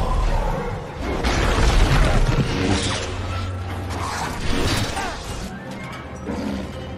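Film fight sound effects: lightsaber hum and swings with loud crashes starting about a second in, and a steady low hum from the blades underneath.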